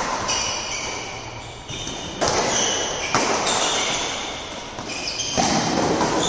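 Badminton rally: rackets hitting the shuttlecock several times, sharp hits about a second apart, with short high squeaks from players' shoes on the court, echoing in a large hall.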